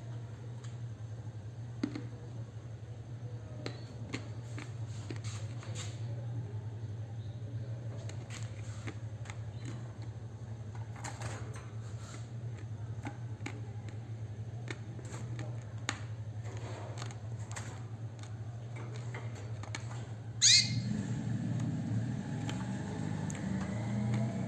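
Cage birds chirping sporadically over a steady low hum, with one loud, sharp call falling in pitch about twenty seconds in.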